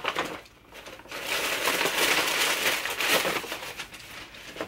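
Paper crinkling and rustling as hands rummage inside a paper gift bag to pull out a present. It starts about a second in and goes on for about three seconds.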